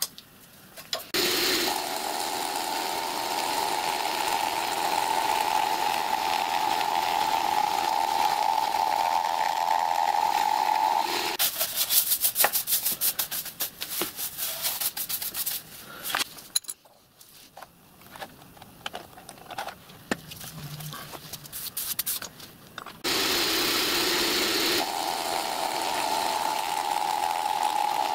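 Vertical milling machine running with a steady hum while skimming the edges of brass sheets clamped between wood. The hum stops about 11 seconds in, followed by several seconds of rapid clattering and then scattered clicks. The machine starts up again a couple of seconds before the end.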